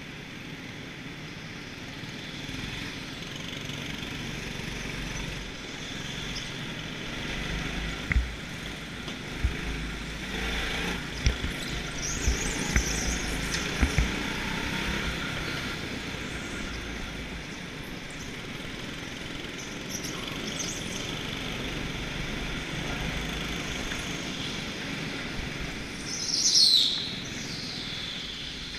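Go-kart running on an indoor track, heard from a camera mounted on the kart: a steady engine-and-rolling noise with a few sharp knocks in the middle and a brief high falling squeal near the end.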